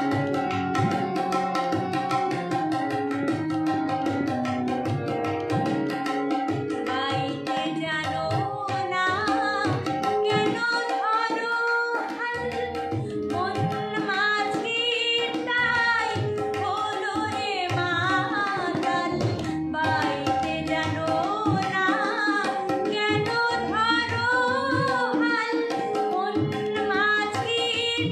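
A woman singing a Bengali song over instrumental accompaniment with drums. The first several seconds are instrumental, and the voice comes in about seven seconds in.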